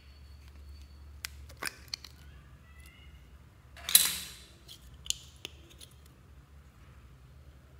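Thin plastic bow-shaped slime container clicking and crackling as it is handled and squeezed, with one loud, short rush of noise about four seconds in as the green slime is forced out into the bowl, then a couple more clicks.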